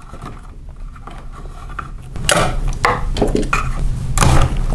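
Yellow 12-2 NM (Romex) cable being pulled through a hole in a wood stud and pushed into a blue plastic single-gang electrical box. Soft rubbing at first, then from about two seconds in a run of sharp clicks and knocks of cable and hands against the plastic box, loudest near the end.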